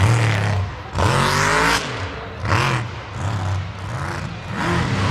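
Mud truck's engine revving up and down in repeated bursts, with a loud rising rev and a rush of noise about a second in.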